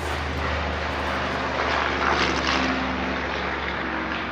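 Electric miter saw motor running and its blade cutting through crown molding. The sound starts suddenly and grows louder in the middle as the blade goes through the wood.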